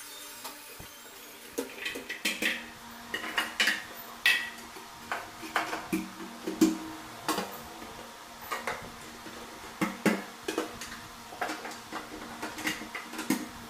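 Irregular clinks, clacks and knocks of metal and laminated board: a stainless-steel wire kitchen basket being handled and cabinet shutters being set onto their hinges, several sharp metallic clicks ringing briefly.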